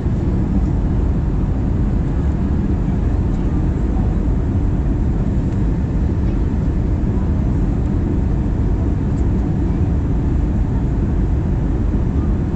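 Steady low rumble of an Airbus A320's cabin on approach: jet engine and airflow noise heard from a window seat, holding an even level throughout.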